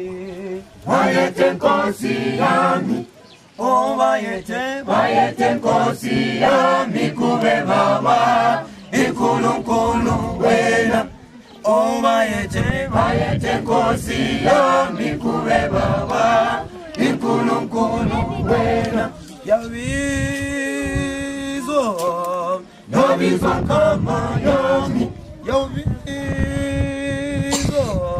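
Church choir singing a hymn unaccompanied, in phrases with short pauses between them.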